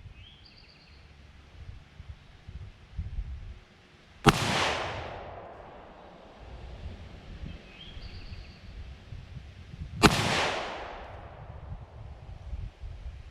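Two rifle shots about six seconds apart, each followed by a long rolling echo that dies away over a second or more.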